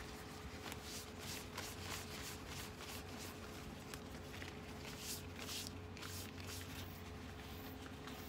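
Ficus leaves rustling and brushing as they are wiped one by one with a cloth: short, irregular strokes over a faint steady hum.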